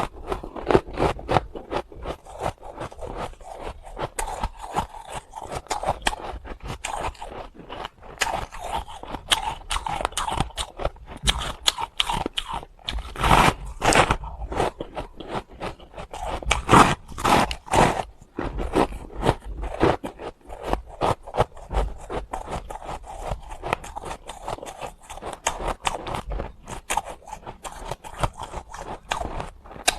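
Hard ice being bitten and chewed close to the microphone: a dense, irregular run of sharp crunches and cracks, with the loudest bites about 13 and 17 seconds in.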